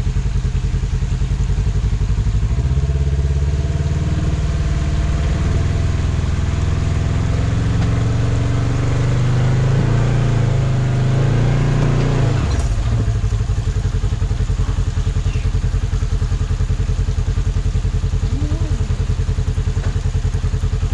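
Polaris RZR XP1000's parallel-twin engine idling, then held at raised revs under load for about ten seconds while the machine crawls over rock, before dropping back to idle with a sharp click.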